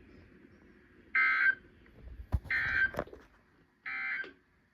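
EAS end-of-message code on National Weather Service weather radio: three short, harsh data bursts about a second apart, marking the end of the weekly test broadcast. A low thump falls between the first and second bursts.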